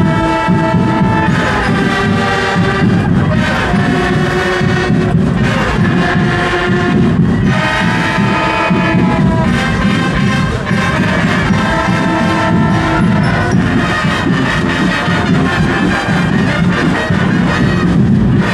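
Marching band playing: brass carrying a melody in phrases over a steady drum beat.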